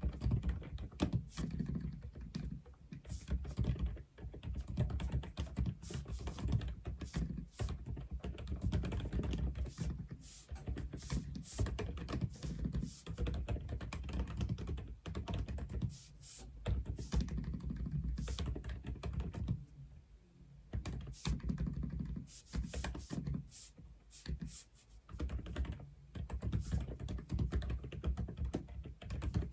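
Fast, continuous typing on an Aula F87 (독거미 F87) mechanical keyboard, a dense irregular run of keystrokes, with brief pauses about twenty seconds in and again a few seconds later.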